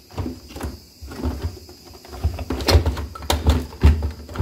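Plastic refrigerator parts knocking and clicking as the ice maker's auger motor assembly is worked loose from its housing. The knocks are irregular, with the loudest ones in the second half.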